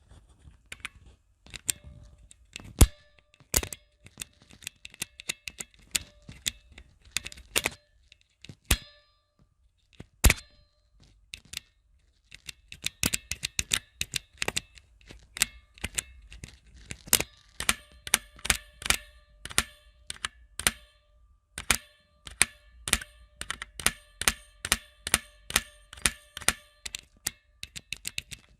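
Mechanical keyboard keys with Outemu brown switches being pressed one after another, first slowly, then in quicker runs. Each keystroke clicks, and many leave a short metallic ping ringing behind them, a clang that the owner finds annoying and puts down to a spring or something inside the switch.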